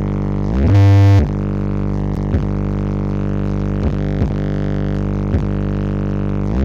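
Bass-heavy music blasting from a huge stacked wall of Brewog Audio speaker cabinets at a sound check: a loud, steady, low droning tone with brief pitch dips every second or so, surging louder for about half a second about a second in.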